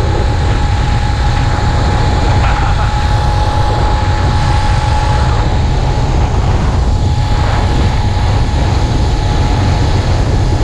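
Small four-stroke engine of a motorized bicycle running steadily at cruising speed during its break-in run, under a heavy low wind rumble on the microphone.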